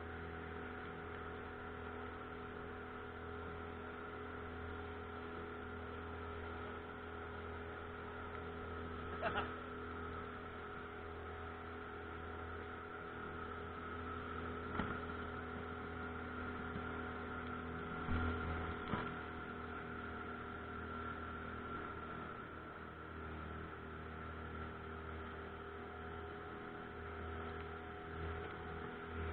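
Pontoon boat's outboard motor running steadily at a constant speed, an even droning hum, with a few brief knocks about nine, fifteen and eighteen seconds in.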